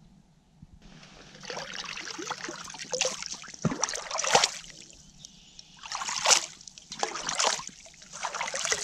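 Lake water splashing and trickling as a metal camp pot is dipped in and lifted out, in several swells of sloshing that start about a second in.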